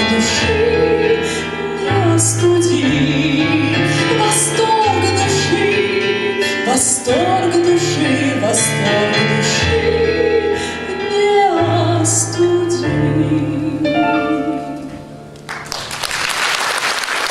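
Grand piano accompanying a woman's held, wavering sung notes as the song ends; the music dies away about 15 seconds in, and applause breaks out just after.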